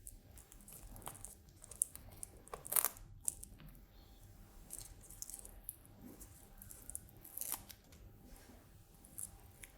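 Faint, scattered crinkling and short tearing noises from self-adhesive hook-and-loop tape strips and their backing being handled and pressed into place by hand.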